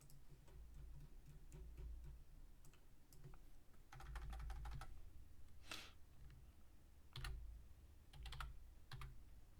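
Faint computer keyboard typing: scattered keystroke clicks and short runs of them.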